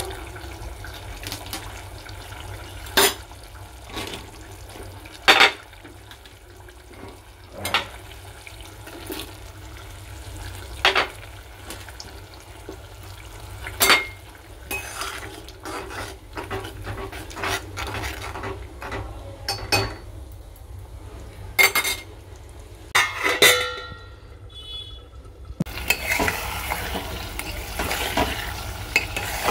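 A metal spoon clinking against a metal cooking pot with a curry in it, in sharp single knocks a few seconds apart. About 26 seconds in, the spoon starts stirring continuously and scraping through the simmering curry.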